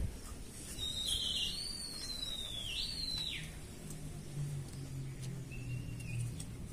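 A high whistled call that glides slowly down over about two and a half seconds, ending with a quick upward flick and drop, followed near the end by a short, fainter whistle.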